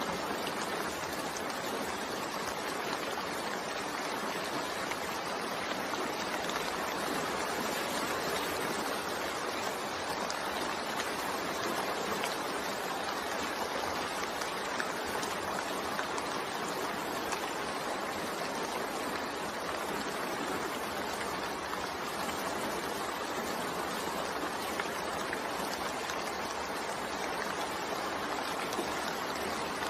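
Steady rain falling, a continuous even hiss with a dense patter of drops.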